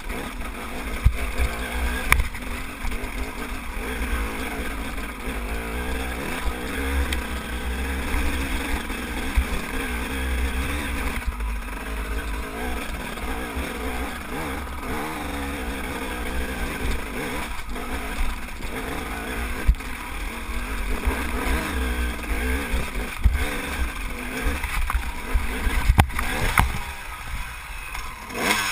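Enduro dirt bike's engine running under load as it climbs a rocky trail, with scattered knocks and clatter from the bike striking rocks. Near the end the engine sound drops away.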